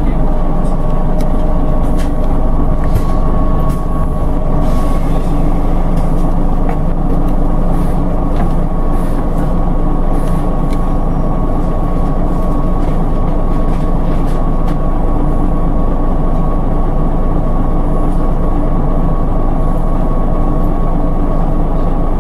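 Scania OmniDekka double-decker bus's diesel engine idling steadily just after being started, heard from inside the lower-deck cabin. There are a few light clicks and rattles in the first half.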